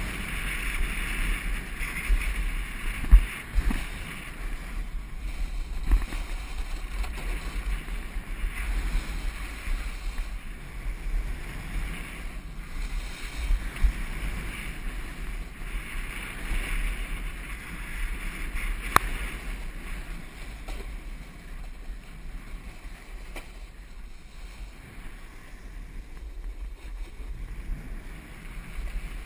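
Snowboard sliding and carving over soft spring snow: a continuous scraping hiss with wind buffeting the microphone as a low rumble, and a few sharp knocks from bumps along the way.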